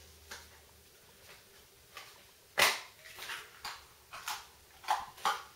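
A string of short plastic clicks and knocks as the small orange case of a folding pocket stove is handled and opened, the loudest about halfway through.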